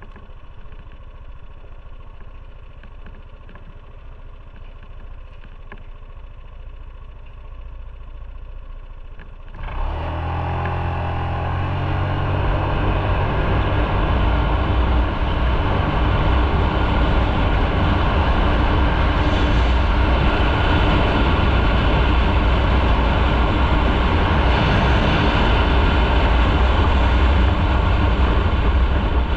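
Motorcycle engine idling quietly. About ten seconds in it pulls away, the engine note climbing in steps. Then it runs steadily at speed under loud wind noise.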